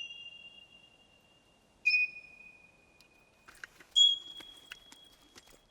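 Cartoon birds calling, sounding so sad: three long, single high whistled notes about two seconds apart, each starting sharply and fading slowly, with a few faint ticks in between.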